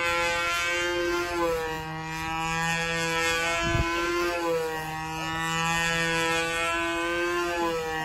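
Radio-controlled model airplane's motor and propeller running steadily as it flies past overhead, its pitch falling and rising as the plane swoops by. A brief low thump comes about four seconds in.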